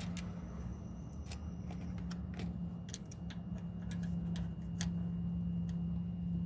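Irregular small, sharp plastic clicks and taps, about a dozen, from working the ABS connector's plastic locking tabs and cover with a small pry tool. A steady low hum runs underneath.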